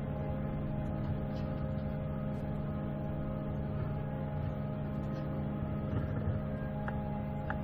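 Heavy loader's engine running steadily with a constant hum.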